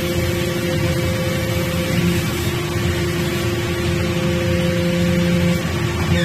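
Wood chip and sawdust briquetting press running: a steady mechanical hum with a constant drone and a low rumble underneath.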